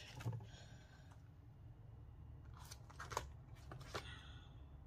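Faint crinkles and clicks of clear plastic stamp sheets and their packets being handled, a few brief ones spread through.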